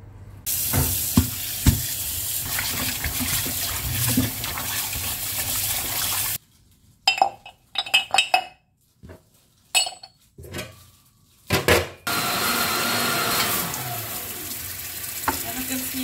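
Tap water running into a stainless-steel sink, with two sharp knocks near the start. Then for about six seconds come separate metal clinks and clanks as the aluminium parts of a meat grinder are fitted together, followed by steady running water again.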